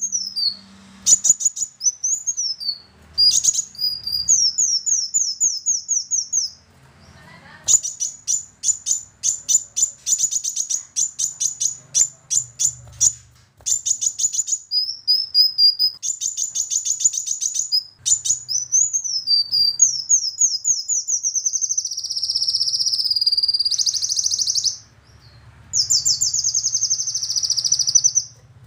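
Male kolibri wulung (a sunbird) singing in full song: fast high-pitched trills of rapidly repeated notes, broken by up-and-down sweeping phrases and a few brief pauses, with longer warbling runs near the end.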